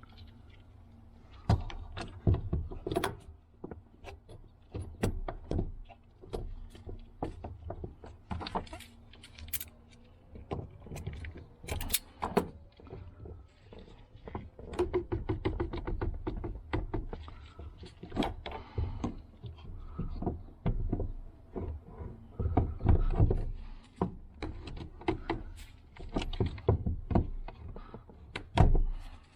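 Fuel pump lock-ring tool being worked against the stuck lock ring on the fuel tank: many irregular metal clicks and knocks, some sharper and louder than others, as the ring is turned loose bit by bit.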